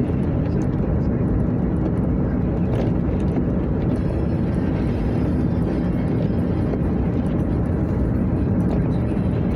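Steady road noise heard inside a moving car's cabin: tyres on wet pavement and the engine running, a constant low rumble.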